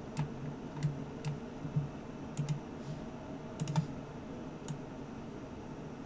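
Computer mouse and keyboard clicks from working in 3D software: several short, sharp clicks, some single and some in quick pairs, spaced irregularly over a faint low hum.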